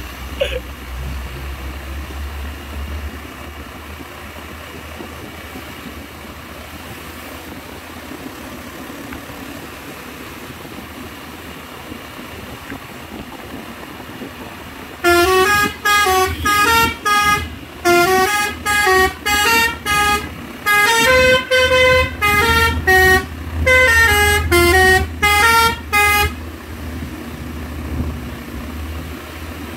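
A truck's telolet (basuri) musical horn plays a quick melody of short, stepping notes for about eleven seconds, starting about halfway through. Before and after it, the truck's engine runs with a low rumble.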